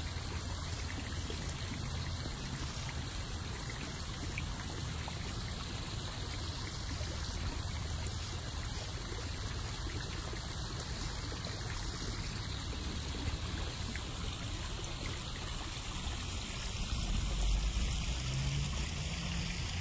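Steady trickle and splash of water running in a backyard koi pond's waterfall.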